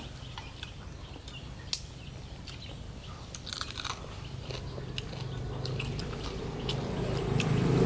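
Close-up eating sounds: scattered crunching and chewing as food is bitten, with a denser run of crunches near the middle. A low steady hum comes up and grows louder toward the end.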